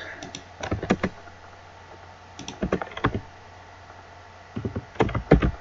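Computer keyboard keys being typed in three short bursts of clicks with brief pauses between them.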